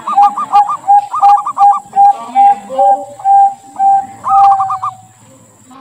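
Zebra dove (perkutut) cooing its song: quick runs of higher rolling notes alternating with a string of lower coos that slow down and stop about five seconds in.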